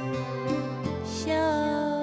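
Slow, soft music with sustained chords and a melody line; a new low bass note comes in a little under a second in.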